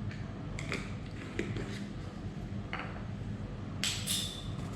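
Light clicks and taps of black pepper being added to an egg in a bowl, with a short, louder rattling scrape about four seconds in, over a steady low hum.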